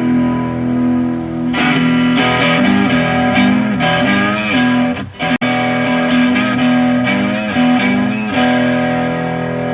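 Modified Fender Japan ST54-95LS Stratocaster electric guitar on its front pickup, played through an amp: a held chord, then a run of picked single notes with bends and vibrato, broken briefly about five seconds in, ending on a ringing chord.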